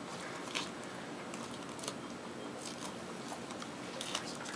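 Faint rustling and crinkling of a wound dressing being peeled off a leg by gloved hands, with a few soft scattered clicks over steady room hiss.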